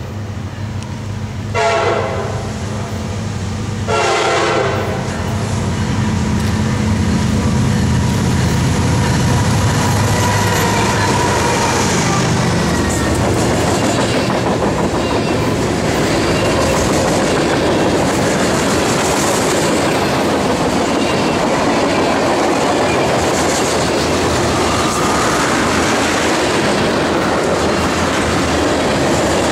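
Norfolk Southern freight train passing close by. The lead diesel locomotive sounds its horn twice in the first five seconds while its engine rumble builds and then passes about ten seconds in. The freight cars then roll past with a steady clatter of wheels over the rail joints.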